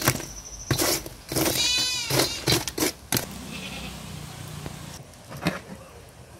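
Sharp clinks and scrapes of a metal slotted ladle scooping glowing charcoal, with a farm animal bleating once about one and a half seconds in.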